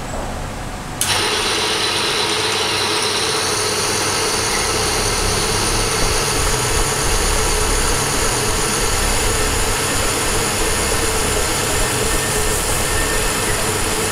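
Electric motor of a bench-top lever-arm friction wear tester switching on about a second in, then running steadily with a whine as its spinning test ring rubs under load.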